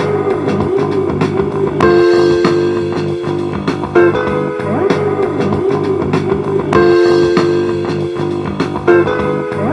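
Instrumental guitar music: a riff with bending notes, its phrase repeating roughly every two and a half seconds.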